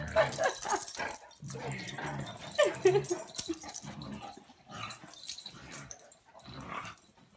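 Two dogs play-fighting on a bed: short high-pitched yips and whines, mostly in the first few seconds, over low rumbling and scuffling on the bedding. It grows quieter toward the end.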